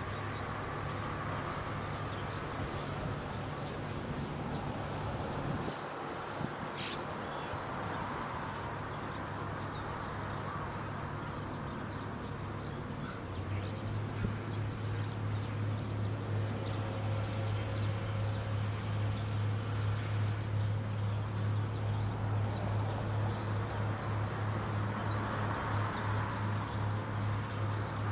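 Rice combine harvester engine running as a steady low hum that grows louder about halfway through, with many short high chirps scattered over it.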